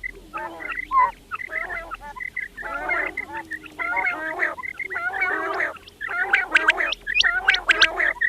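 Quails calling: a busy run of short chattering bursts of wavering notes. Sharp, high whistled notes join in over the last two seconds.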